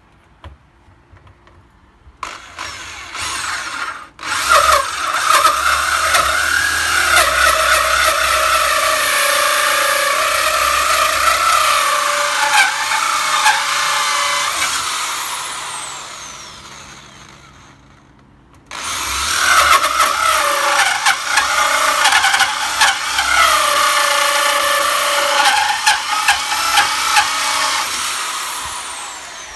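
Electric power drill running at varying speed in two long runs, each ending as the motor winds down with a falling whine. It starts and stops briefly near the beginning.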